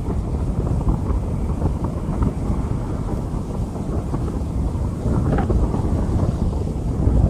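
Heavy rainstorm: dense, steady rain noise under a continuous deep rumble of thunder.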